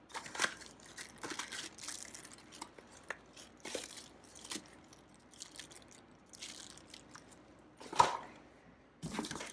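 Clear plastic bag crinkling and cardboard box rustling as a bagged power cable is handled and lifted out, in short scattered rustles with quieter gaps. One sharper knock near the end.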